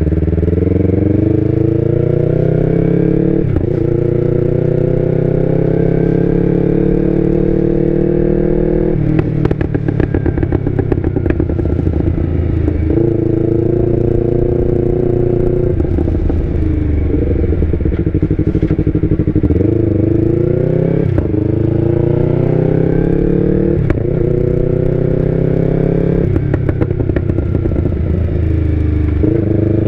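Yamaha R25's parallel-twin engine with an Akrapovic exhaust, accelerating through the gears while riding. The pitch climbs and drops sharply at each shift, several times over. About nine seconds in there is a few seconds of rapid crackling, off the throttle.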